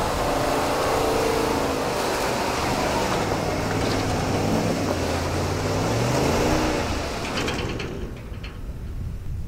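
Pickup truck's engine revving under load as it tows a livestock trailer through mud and snow, the pitch wavering and climbing, then fading off near the end as the truck pulls away.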